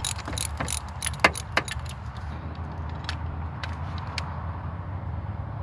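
Hand tools and small metal engine parts clinking and rattling during work on a minivan's idle air control valve: a quick run of sharp clicks over the first two seconds, then a few scattered clicks, over a steady low hum.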